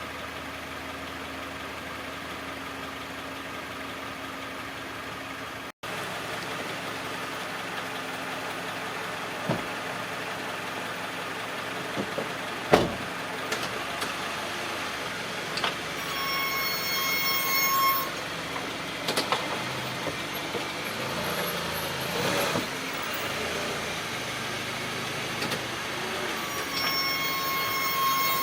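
2004 Honda CR-V brakes squealing twice over the running vehicle's noise, each a steady high-pitched squeal lasting about two seconds. This is typical of a brake pad worn down unevenly because a caliper slide pin has rusted and stuck. There are a couple of sharp knocks earlier on.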